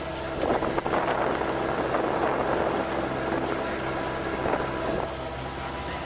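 JCB backhoe loader's diesel engine running steadily while the machine drives along the road, heard from inside the cab. A louder rattling, rushing noise swells about half a second in and drops back about five seconds in.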